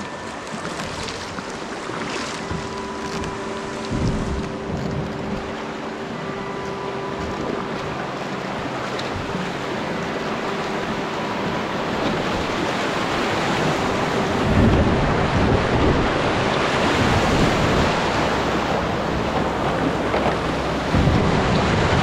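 Whitewater of a river rapid rushing and splashing around a kayak, growing steadily louder as the boat runs down into it, with low rumbles of wind on the microphone.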